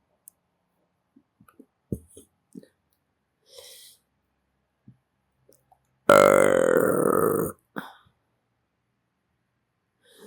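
A person belching: faint mouth clicks, then one loud, long burp of about a second and a half starting about six seconds in.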